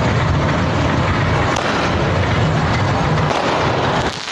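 A 30-shot fireworks cake firing from the road: a loud, dense rush of hissing and crackling that eases about four seconds in.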